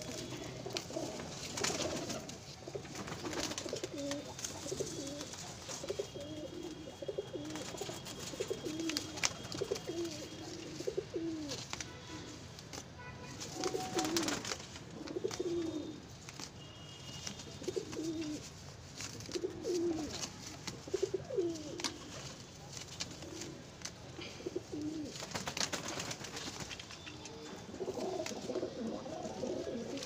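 Domestic pigeons cooing: repeated low, wavering coos every second or two, with now and then a brief rustle or scuffle.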